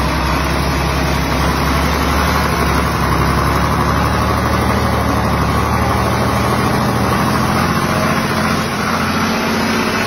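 Secondhand diesel engine running steadily at an even speed after being restarted.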